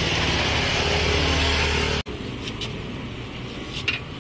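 A steady motor hum with hiss, which cuts off abruptly about two seconds in. After it comes quieter background noise with a few light clicks and clatters.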